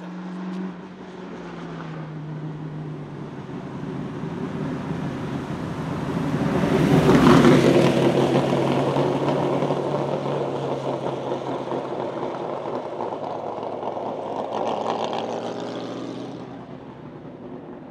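Ford 351 Cleveland V8 of a 1972 De Tomaso Pantera Group 4 race car running hard. Its note drops in the first few seconds, then grows louder to a peak as it passes about seven seconds in. It fades as it drives away, with one more brief rise in revs near the end.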